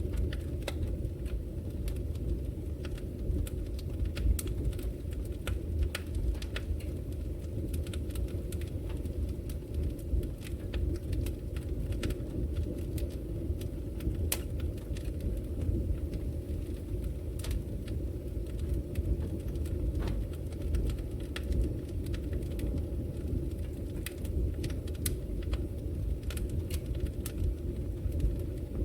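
Wood logs burning in a fireplace: a steady low rumble of the fire with scattered, irregular sharp crackles and pops from the burning wood.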